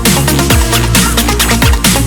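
Electronic dance music with a heavy bass line and a steady, fast drum beat.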